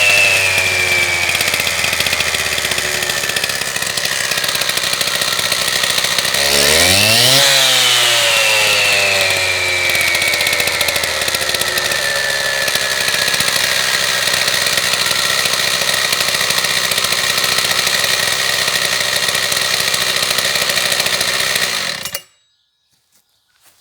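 Husqvarna K760 concrete saw's two-stroke petrol engine coming down from high revs, blipped up once about seven seconds in and winding back down to a steady idle. It cuts off suddenly near the end as the engine is switched off.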